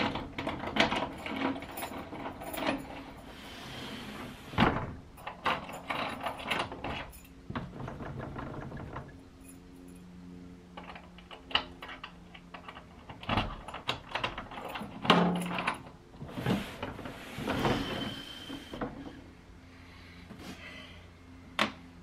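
A glass entrance door and the metal gate bolt lock fitted at its base being worked by hand: a run of sharp metal clicks, knocks and rattles as the bolt is slid and the door is opened and shut, with a couple of quieter pauses.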